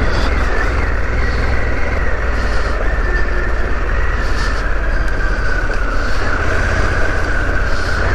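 Harley-Davidson Pan America's 1250 cc V-twin engine running steadily as the motorcycle rides along, with a constant low hum and a haze of road and wind noise.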